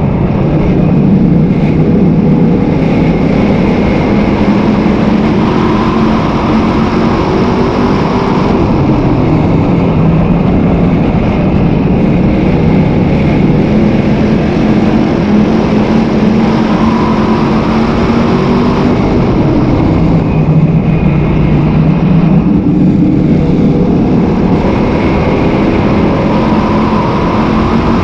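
Sportsman modified dirt race car's V8 engine heard from inside the cockpit. It runs loud, its pitch rising and falling in repeated cycles a few seconds long as the driver gets on and off the throttle around the oval.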